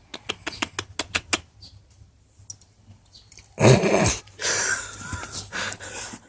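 Old mixed-breed dog sleeping deeply: a quick run of small clicks, then a little over halfway through one loud rough snore, followed by a couple of seconds of rough, noisy breathing.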